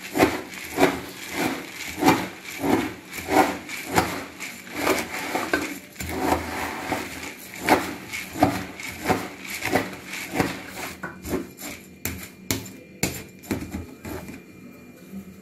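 A metal spoon stirring a puffed-rice bhel puri mix in a large plastic tub: rhythmic scrapes and knocks against the tub about twice a second, with the puffed rice rustling, turning sparser near the end.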